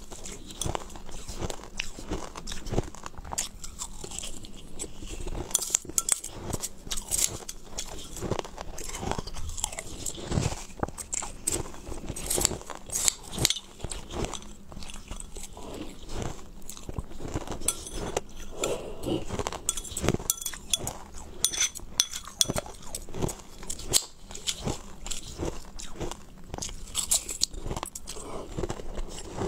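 A person crunching and chewing mouthfuls of crushed ice, close up: a dense, irregular run of sharp cracks and crackles as the ice breaks between the teeth.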